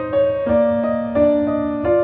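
Background music: a gentle keyboard melody of sustained notes, changing pitch about every half second.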